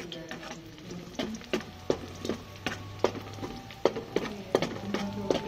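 Metal ladle knocking and scraping against an aluminium pot while stirring garlic in oil, about three short ringing knocks a second.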